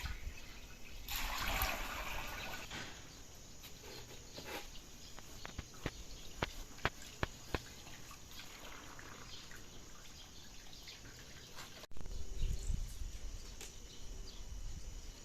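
Liquid from boiled bellflower root, ginger, jujube and pear trickling and dripping as it is squeezed out, with a run of separate sharp drips in the middle. The sound changes abruptly about twelve seconds in.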